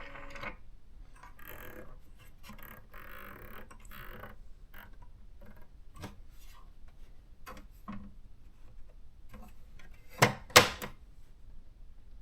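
Faint, scattered clicks of keys and switches being pressed on an electronic typewriter, with two louder short knocks close together about ten seconds in.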